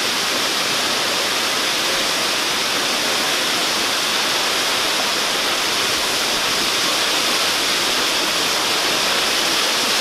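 Waterfall plunging into a pool: a steady, unbroken rush of falling water, mostly a bright hiss.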